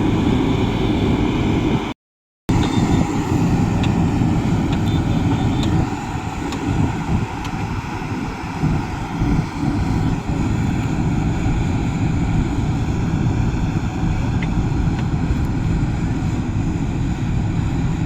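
Heavy diesel construction machinery running steadily with a low rumble. The sound drops out completely for about half a second roughly two seconds in, then carries on unchanged.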